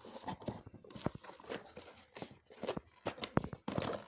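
Cardboard box and packaging being handled as a portable radio is pulled out of it: an irregular run of rustles, scrapes and small knocks, busier and louder near the end.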